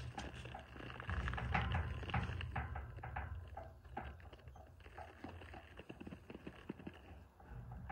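A saddled horse shifting and stepping right beside the microphone: scattered light hoof steps and clicks in the dirt, over a low rumble that is loudest a second or two in.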